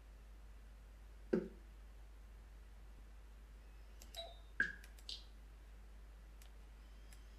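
Computer mouse clicks: one click about a second in, then a quick cluster of three or four clicks about four to five seconds in.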